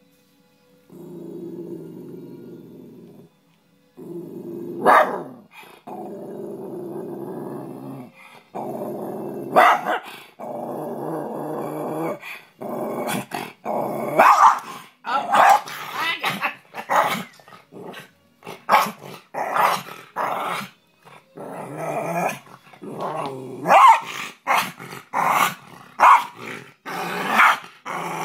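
Rat terrier growling in long growls of a few seconds each, with a sharp bark now and then. From about halfway in it switches to a fast run of short, loud barks and snarls.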